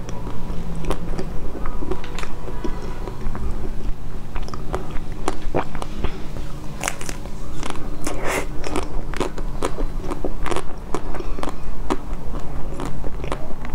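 Close-up biting and chewing of a frozen ice cream bar with a hard pink coating: a run of sharp crackling crunches as the coating breaks, busiest in the middle stretch.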